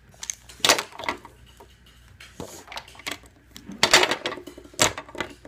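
Hard plastic wrestling action figures clacking against each other and knocking on a tabletop: a few sharp knocks, the loudest about a second and four seconds in, among lighter clicks.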